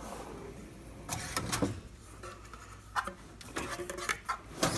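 Steel drawers of a Husky 60-inch tool chest being shut and opened, sliding on their runners, with several sharp clicks and knocks.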